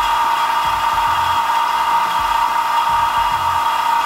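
Vacuum pump running steadily with a constant whine, pumping the air out of a vacuum chamber as it nears −0.8 to −0.9 atmospheres of vacuum.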